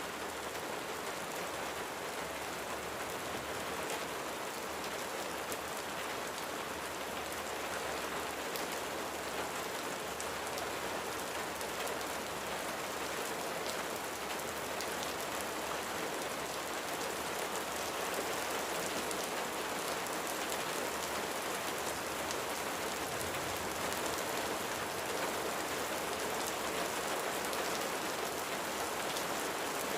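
Steady rain falling, an even hiss of drops with faint scattered ticks of drops landing.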